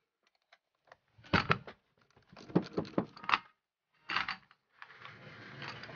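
Steel bolts and nuts and the aluminium antenna base being handled by hand: clusters of small metallic clicks and knocks about a second in, again around two to three seconds in, and once more at four seconds, followed by a soft rustling scrape near the end.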